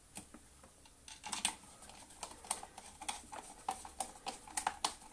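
Hand screwdriver driving a screw into the plastic clutch cover of a Dyson DC07 vacuum cleaner: a run of small, irregular clicks and ticks, starting about a second in.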